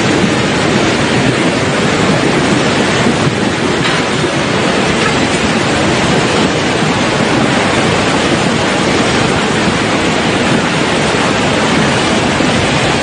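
Loud, steady rushing of a muddy flash flood pouring fast down a street, an even wash of churning water with no let-up.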